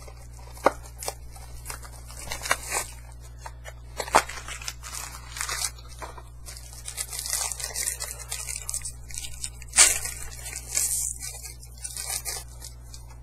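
Trading-card pack packaging being torn open and handled: irregular crinkles, tears and sharp clicks of paper and cardboard, the loudest snap about 10 seconds in.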